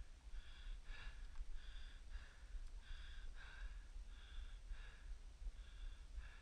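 Fast, heavy breathing close to the microphone, about two breaths a second, with a low rumble underneath.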